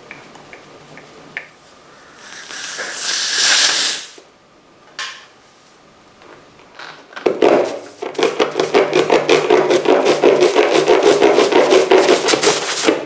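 Air hissing out of a punctured motorcycle tyre as the screw is pulled, then a spiral reamer rasping in and out of the puncture hole in quick repeated strokes, opening it out to take a sticky plug.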